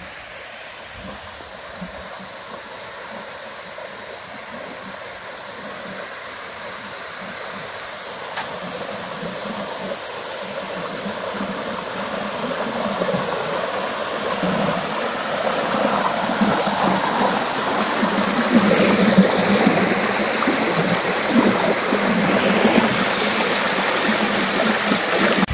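Rushing water of a stream and waterfall, a steady noise that grows gradually louder.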